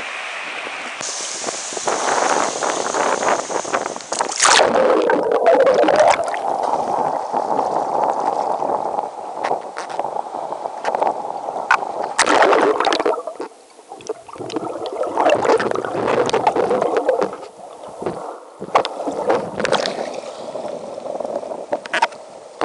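Ocean water sloshing and splashing close to the microphone in shallow surf. It swells and falls irregularly, with a few sharper splashes.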